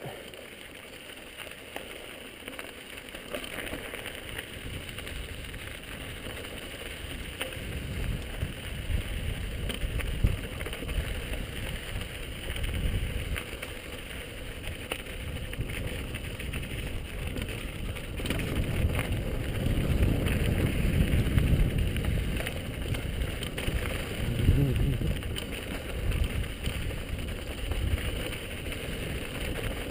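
Mountain bike rolling down a rocky dirt trail, heard from a helmet camera: tyres crunching over gravel with frequent small clicks and rattles from the bike, over a low wind rumble on the microphone that swells and fades with speed, loudest a little past the middle.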